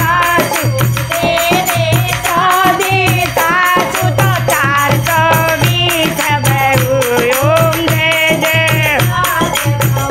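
Women singing a Hindi folk song together to a dholak drum, with a steady low drum beat and a constant metallic clinking of small hand percussion.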